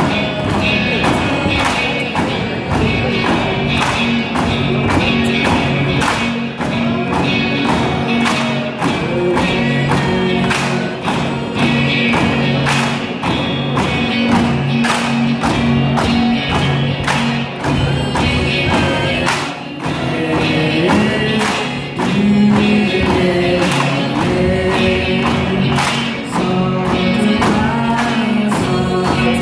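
Music with group singing, over a steady rhythm of bamboo poles clacking together and knocking on the wooden floor for a bamboo dance.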